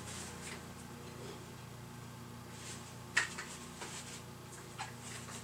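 Light knocks and clatter of tools and a tube of sealant being picked up and handled on a workbench, with one sharper click about three seconds in, over a steady low hum.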